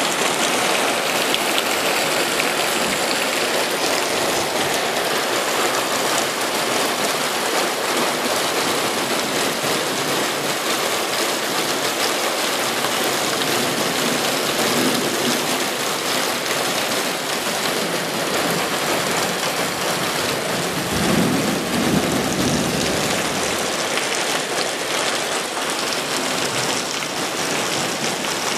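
Heavy rain falling steadily in a thunderstorm, with a low rumble of thunder about three-quarters of the way in.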